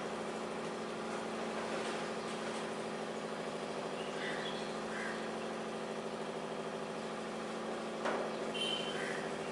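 Marker writing on a whiteboard, with a few faint short squeaks about four seconds in and again near the end, over a steady low hum.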